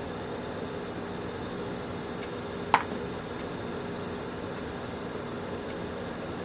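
Steady background hum, like a fan or air conditioner, with a single sharp click a little under three seconds in, as vacuum cleaner parts are handled during reassembly.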